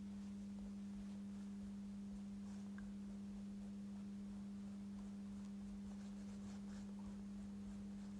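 A steady low hum: one tone with fainter overtones above it.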